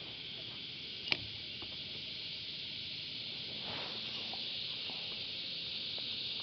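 Cicadas calling in a steady, high-pitched chorus, with one sharp click about a second in.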